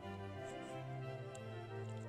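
Slow instrumental background music with long held notes.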